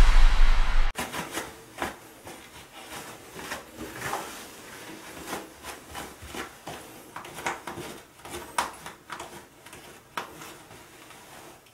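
An electronic music sting ends abruptly about a second in. Then comes an irregular rustling and crinkling of toilet paper as a cat paws and tears at a shredded roll.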